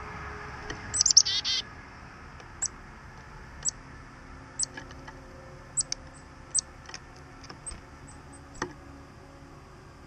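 Black-capped chickadee calling: a loud chick-a-dee-style call about a second in, high notes followed by a rapid buzzy run, then short high call notes about once a second.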